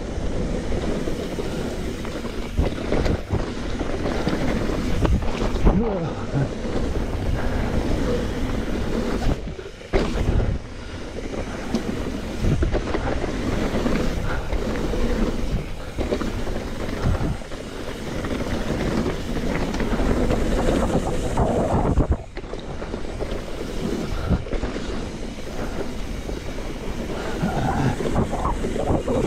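Wind rushing over the camera microphone while a mountain bike rolls fast down a dirt trail, with tyres crunching over dirt and rocks and repeated knocks and clatter from the bike on the rough ground.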